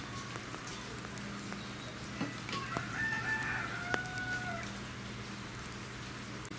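An animal call, drawn out over about a second and a half around the middle, with a steady low hum and a few faint clicks beneath.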